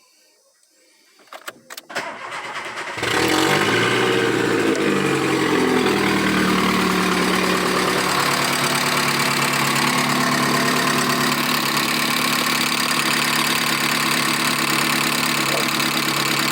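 VW Gol 1.0 AT 8-valve four-cylinder engine being started: a few clicks, a short crank, then it catches about three seconds in, runs fast and settles down to a steady idle. It idles with the strange engine noise commonly blamed on the hydraulic lifters; the exhaust manifold turns out to be cracked right through.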